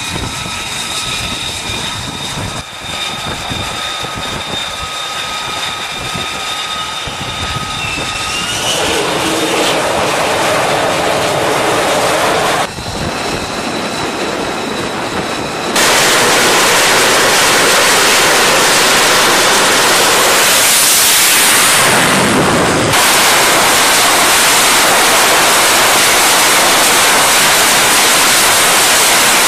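Lockheed Martin F-35C's Pratt & Whitney F135 turbofan whining steadily at low power, the rush swelling after about eight seconds. About halfway through it gives way to a loud, steady jet roar at high power, with a brief surge a few seconds later.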